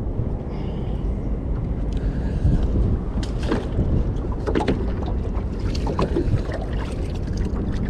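Steady low rumble on the microphone aboard a small fishing boat, with scattered knocks and clicks from movement and handling on the deck.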